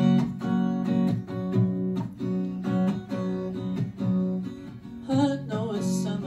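Acoustic guitar strummed in a steady rhythm of repeated chords. A singing voice comes in over it about five seconds in.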